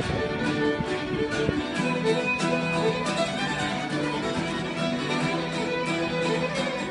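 Violin and guitar duo playing live: the violin holds long bowed notes over strummed guitar chords.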